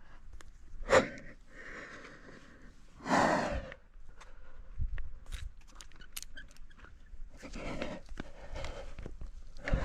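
A rock climber breathing hard, with a strong forceful exhale about three seconds in and another breathy stretch near the end. Short knocks, including a sharp one about a second in, and small clicks and scrapes come from hands, shoes and gear on the rock.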